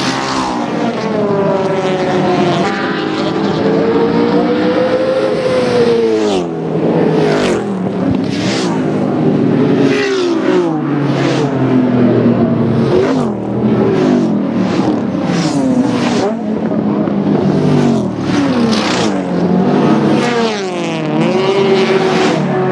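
Several historic racing cars pass one after another at speed. Their engines rev up and drop back repeatedly, the pitch climbing and falling through gear changes.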